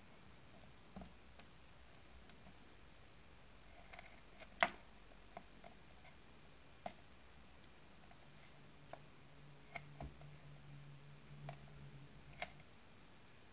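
Sparse faint clicks and taps of a small knife cutting a miniature slab of butter on a silicone baking mat, with one sharper click about four and a half seconds in. A faint low hum runs through the last few seconds.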